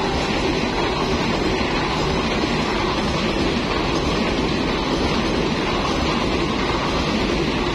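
Passenger train coaches rolling past, a steady rumble of steel wheels on the rails.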